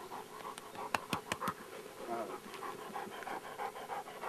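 Perdiguero de Burgos (Burgos pointer) panting in quick, regular breaths. About a second in there are four sharp clicks.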